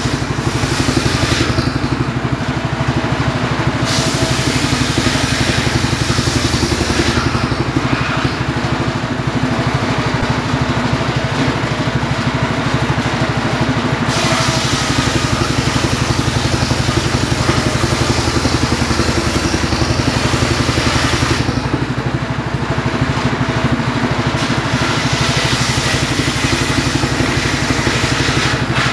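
Homemade circular saw running steadily on its motor while its blade rips lengthwise through firewood logs. A harsh cutting noise comes in over the machine's even drone in several long stretches as each log is pushed through.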